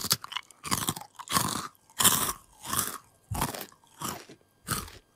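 A person chewing a mouthful of milk chocolate bar, close to a clip-on microphone: steady, regular chews about one and a half a second.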